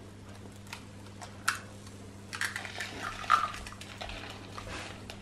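A raw egg cracked open by hand: a sharp tap on the shell, then about a second later a run of small crackling clicks as the shell is broken apart.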